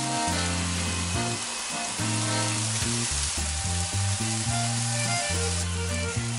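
Sliced mushrooms frying in a nonstick pan, a steady sizzle, with butter melting in among them near the end. Background music with low notes plays underneath.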